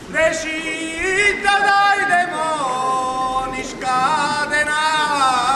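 A man singing a drawn-out verse of a carnival folk play, holding long notes that bend up and down in pitch, with a brief dip about halfway through.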